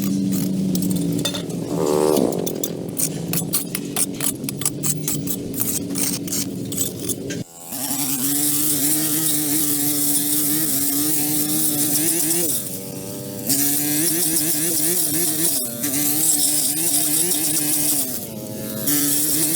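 A small engine or motor running steadily with a wavering pitch, with fast clicking over the first seven seconds and a brief falling whine about two seconds in.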